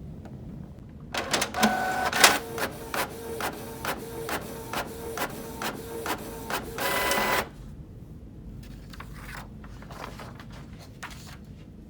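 Canon PIXMA MX490 inkjet printer's mechanism running through its start-up cycle after an ink cartridge change: motor whirring with regular clicks about three times a second. It starts about a second in and stops suddenly about seven seconds in, followed by faint scattered ticks.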